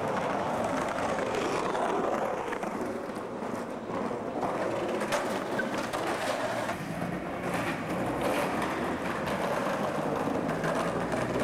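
Skateboard wheels rolling over paving: a steady rolling rumble with a few sharp clicks along the way.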